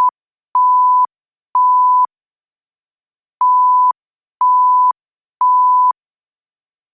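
Emergency alert attention tone: a steady pure beep at about 1 kHz, each beep about half a second long and a second apart, in sets of three with a longer pause between sets.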